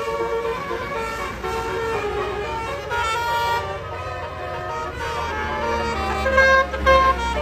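Bus 'telolet' Basuri musical horn playing a quick tune of stepped notes, one multi-tone chord after another, with a low rumble that grows stronger near the end.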